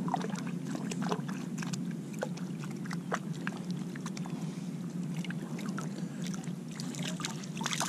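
Steady low rushing of water and wind around a fishing kayak, with scattered small clicks and taps of gear being handled on board.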